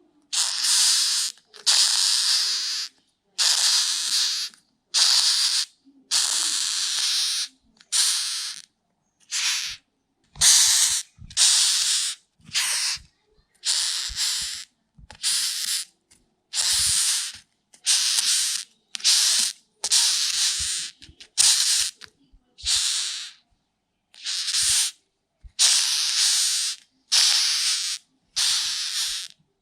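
Rhinoceros beetle hissing in a long series of short bursts, roughly one a second, each broken off by a brief silent gap.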